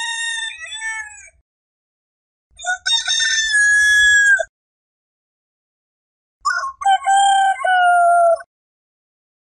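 Rooster crowing: three cock-a-doodle-doo calls of about two seconds each with dead silence between them. The first is already under way at the start, and the last is lower-pitched.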